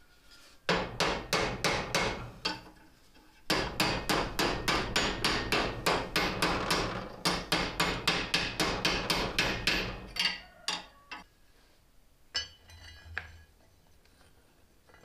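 Hand-hammer blows on hot steel, forming the bowl of a small forged spoon over a ball-peen hammer head held in a vise as a stake. There is a short run of blows, a pause of about a second, then a long steady run at about three to four blows a second. This tapers off around ten seconds in and is followed by a brief lighter clatter.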